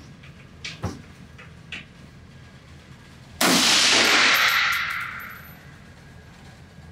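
A single shot from a Nemo Arms Battle Light Rifle chambered in 6mm ARC, about halfway through, its blast ringing on in the indoor range and dying away over nearly two seconds. A few faint clicks come before it.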